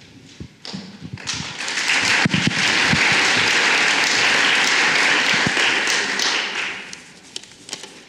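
Audience applauding, building up about a second in, holding steady, then dying away near the end.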